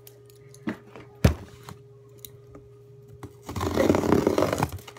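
Cardboard shipping box being handled and opened: a few light clicks and a sharp thump about a second in, then about a second of rasping, tearing noise near the end as the box is pulled open.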